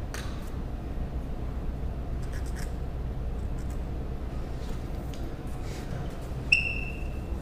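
Faint scratching of a pencil marking a line on a plaster cast model, with a few light taps, over a steady low hum. Near the end, one short, high-pitched ring.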